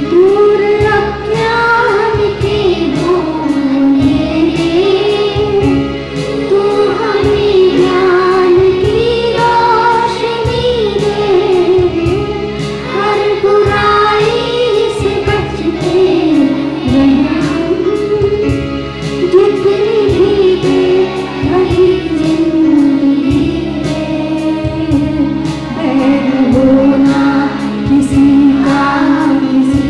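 A Hindi prayer song: a woman singing a slow, wavering melody over instrumental accompaniment with a steady beat.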